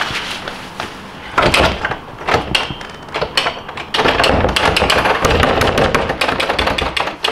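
Knocks and rattling at a wooden door being worked by hand, turning into a loud, continuous rattle about four seconds in: someone trying to open a door that won't open.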